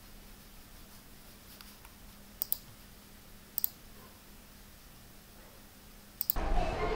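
A pizza being cut on a ceramic plate: a few sharp clicks, in two close pairs about a second apart, and one more near the end, as the cutter meets crust and plate. A louder, fuller noise starts just before the end.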